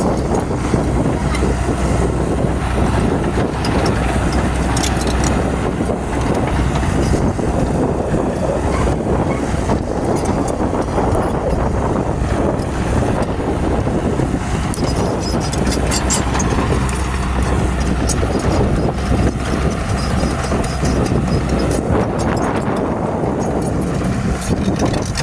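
Excavator's diesel engine running steadily while working, with scattered short clicks and knocks.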